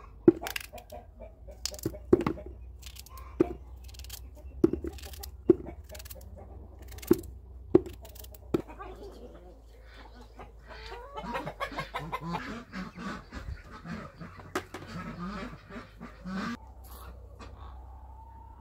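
Cucumbers being cut by hand with a knife over a plastic bucket, a sharp crisp snap with each cut, about once a second for the first nine seconds. Chickens then cluck busily from about eleven seconds in.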